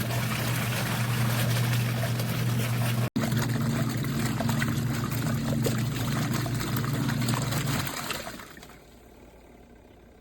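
Twin-tub portable washing machine's wash motor running with a steady hum while water churns in the tub. The motor stops about two seconds before the end, leaving a faint hiss, as in the pause of an agitation cycle.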